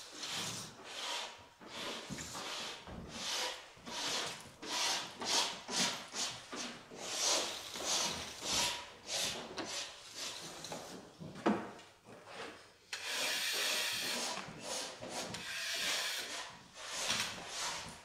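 Repeated rasping scrapes of a long-handled drywall finishing tool pushed up and down the wallboard, spreading joint compound, about two strokes a second. A sharp knock about two-thirds of the way through, then a longer unbroken scrape.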